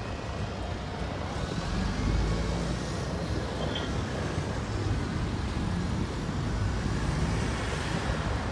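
Steady low motor rumble with an even noise over it, a little louder from about a second in.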